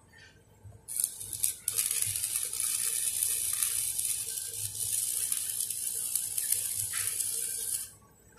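Stick (shielded metal arc) welding on 3-inch schedule 40 steel pipe: the electrode arc strikes about a second in, then crackles and sizzles steadily for about six seconds and breaks off near the end.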